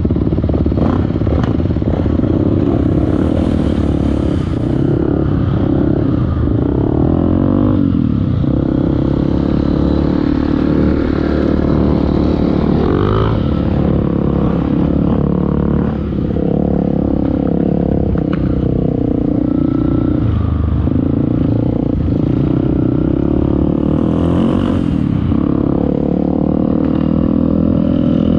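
Off-road motorcycle engine running hard under way, its revs rising and falling repeatedly as it rides through sand.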